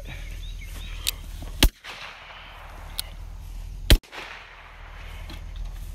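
Two sharp, loud handgun shots about two seconds apart, fired at an armadillo on the ground. A fainter click comes shortly before each shot.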